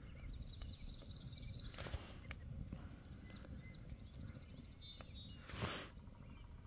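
A woodpecker drumming in the distance, one short fast roll a little past the middle. Around it are the campfire's scattered sharp crackles and pops, with a thin high bird call in the first couple of seconds. A brief louder rush of noise comes about five and a half seconds in.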